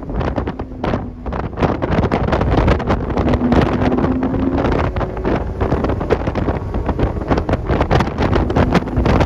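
Heavy wind buffeting on the microphone over the engine and road noise inside a Porsche driven at track speed. A faint engine tone shows through about three seconds in.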